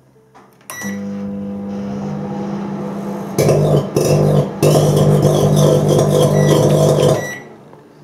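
Tristar microwave oven beeps as it is started and runs with a steady hum. About three seconds in, a loud crackling buzz of arcing inside the cavity sets in, breaks off for a moment, and then carries on until the oven cuts out near the end. The sparking is on the right side wall, a sign of a burnt, grease-spattered mica waveguide cover.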